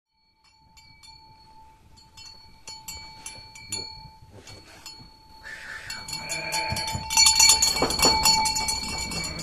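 Sheep bleating, louder from about halfway through. Under them is a held, ringing bell-like tone with light clinks, starting shortly after the opening.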